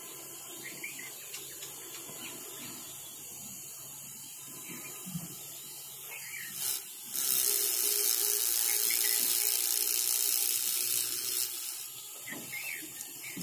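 Small electric motor of a miniature chaff cutter spinning its flywheel and cutter with a steady hum. About seven seconds in, grass is fed into the blades, and a loud, even hissing whir of shredding lasts about four seconds before it drops back to the motor's hum.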